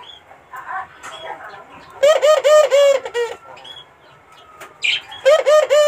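Puter (Barbary dove) cooing in two quick runs of repeated arched notes, one about two seconds in and another near the end.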